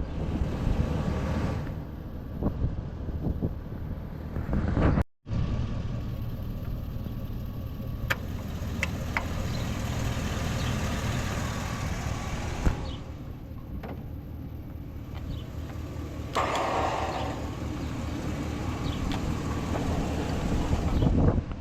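A vehicle engine running steadily at idle, with a brief dropout about five seconds in and a louder, brighter stretch near the end.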